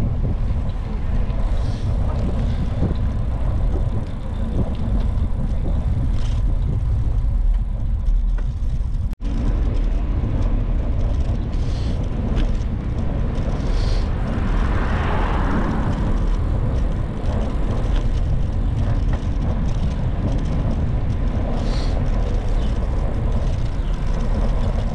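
Steady low rumble of wind and road noise on the microphone of a moving bicycle, with traffic sounds. A louder passing sound swells about fifteen seconds in, and the sound cuts out for an instant about nine seconds in.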